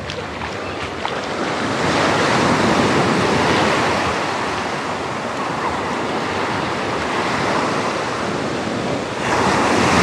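Small ocean waves breaking and washing up the sand at the water's edge, the surf swelling about two seconds in and again near the end.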